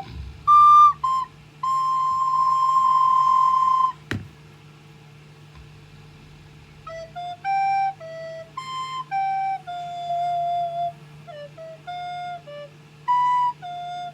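A child playing a recorder, one note at a time. There are a few notes and then a long held high note, a sharp knock about four seconds in, and a pause of a few seconds. Then comes a slower phrase of lower, shorter notes.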